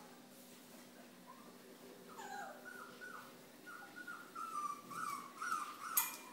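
Shetland sheepdog whimpering: a string of short, high whines starting about two seconds in, with a sharp click near the end.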